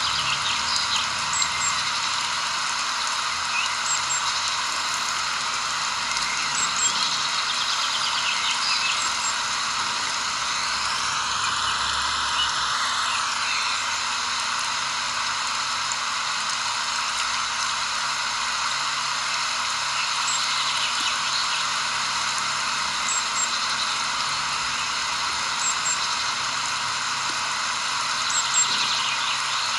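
Steady outdoor nature ambience: an even hiss with faint, short high chirps every few seconds, and a brief tone that glides up and back down about halfway through.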